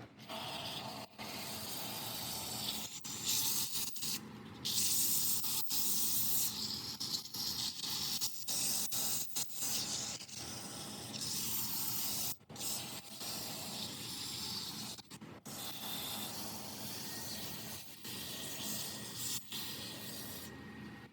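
Sandpaper held against a wood workpiece spinning on a lathe: a steady hiss that swells and eases, broken by several brief gaps.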